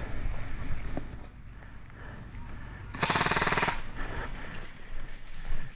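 Airsoft rifle firing one short full-auto burst of rapid, evenly spaced shots lasting under a second, a little past the middle.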